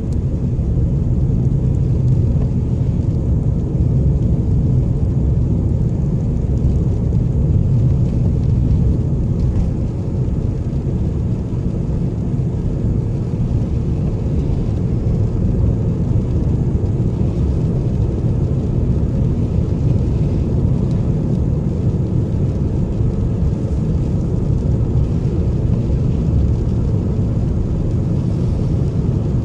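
Steady low rumble of a car's engine and tyres on a rain-wet road, heard from inside the cabin.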